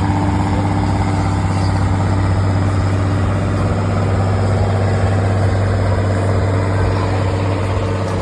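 John Deere 6530 tractor's six-cylinder diesel engine running steadily and loudly, with an even, unchanging pitch.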